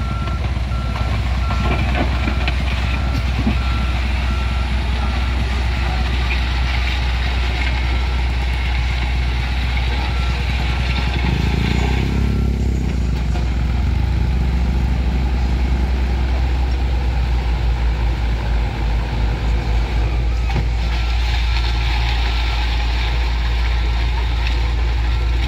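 Komatsu backhoe loader's diesel engine running with its reversing alarm beeping steadily as it backs up. The beeping stops about halfway while the engine revs and the machine moves forward, and starts again near the end as it reverses once more.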